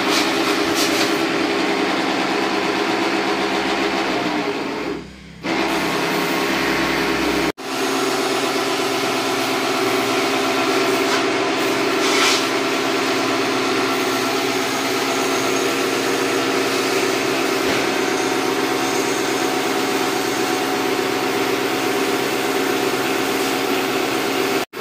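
A small motor running steadily, cut off abruptly about seven and a half seconds in before it carries on.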